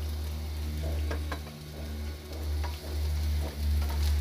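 Chopped onion and onion greens sizzling in hot oil while being stirred, with a utensil scraping and tapping the pan now and then. A steady low hum runs underneath.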